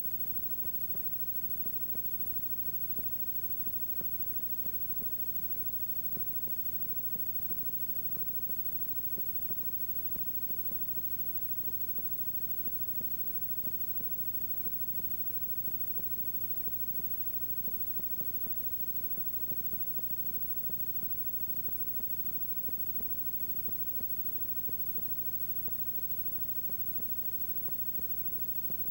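Steady electrical hum with tape hiss and faint frequent clicks, no game sound: the noise floor of an old videotape transfer.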